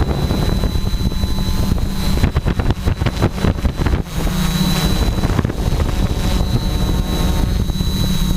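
Tarot 680 hexacopter's electric motors and propellers running, a steady high whine that wavers slightly in pitch, heard from the drone-mounted camera with wind buffeting the microphone in gusts, strongest a couple of seconds in.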